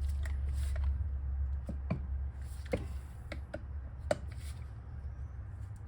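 A few sharp clicks and light taps of metal hand tools and motor parts being handled while screws are checked, over a low steady hum.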